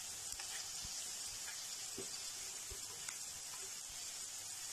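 Oil sizzling steadily in a frying pan of mashed potato, peas and spices on a low flame, with a few faint crackles.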